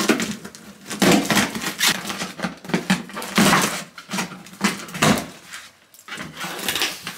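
Tape and clear plastic on a cardboard box being slit with a small blade and torn open by hand: a run of irregular ripping and crinkling bursts, about one or two a second, with the cardboard knocked about.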